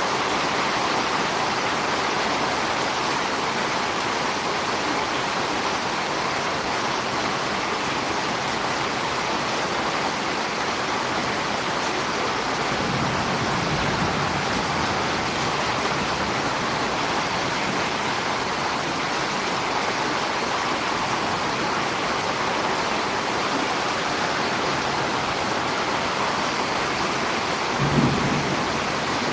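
Steady rain falling, an even hiss with no breaks. A low rumble comes in about halfway, and there is a short low thump near the end.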